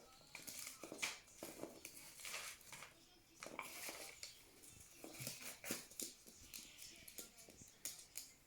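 Parrot tearing and shredding paper with its beak: faint, irregular crackling, crunching and small clicks.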